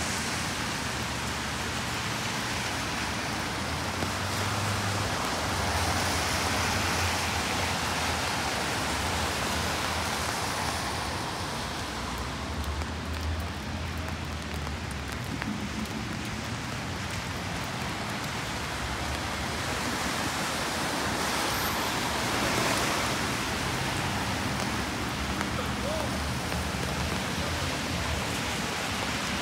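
Steady rain falling on a city street, with a low traffic rumble and a few swells of tyre hiss as cars pass on the wet road.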